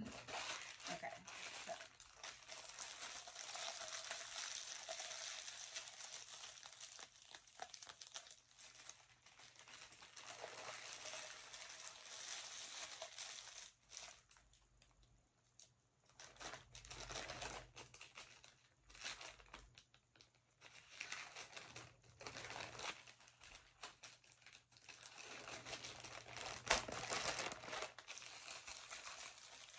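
White plastic mailer packaging crinkling and rustling as hands work it open, with some tearing, and a short lull about halfway through.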